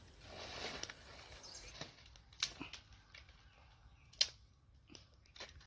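Dry leaves rustling and crackling underfoot and in the hands as dry twigs are gathered from a leaf-littered forest floor, with a few sharp cracks of dry twigs, the loudest about four seconds in.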